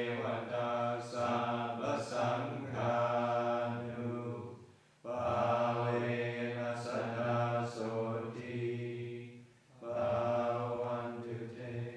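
Thai Forest tradition Buddhist monks chanting together in low male voices, held on one steady note. The chant comes in long phrases that break briefly about five seconds in and again near ten seconds, then fades at the end.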